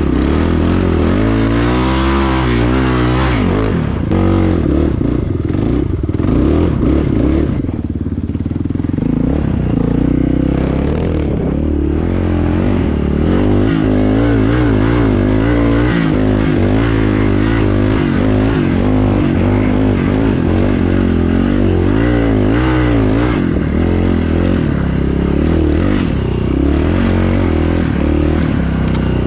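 Yamaha Raptor 660 quad's single-cylinder four-stroke engine running while being ridden, its pitch rising and falling again and again with the throttle.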